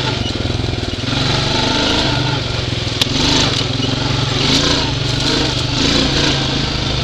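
Utility ATV engine running steadily under way on a trail, with one sharp click about three seconds in.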